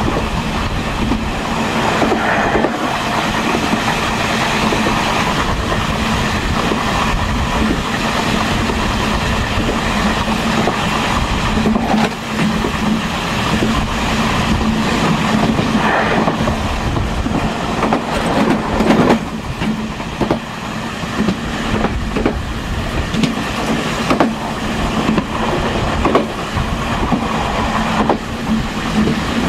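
Taiwan Railways Chu Kuang express parlor car running along the track, heard from inside the car: a steady rolling rumble with a constant hum, and the wheels knocking over rail joints now and then.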